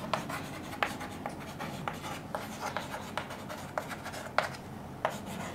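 Chalk writing on a chalkboard: irregular taps and short scratches as letters are written.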